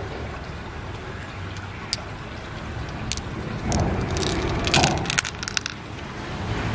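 Freshwater pearls clicking against each other and against the mussel shell as they are handled, with a quick run of clicks just past the middle, over a steady rush of stream water.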